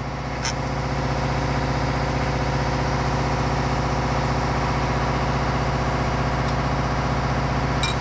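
An engine idling steadily, with a light click about half a second in and another near the end.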